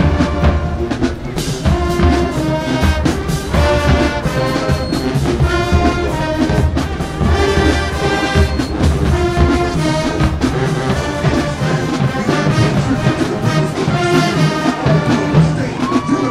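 Marching band playing: a full brass section of trumpets and trombones in loud held chords over a steady drumline beat.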